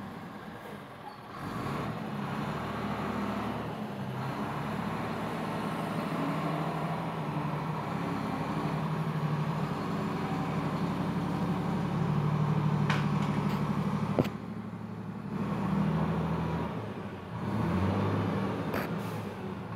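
Engine of a loaded FAW dump truck running close by, its note rising and falling as it revs up and eases off. There is a sharp click about fourteen seconds in, after which the engine note drops before picking up again.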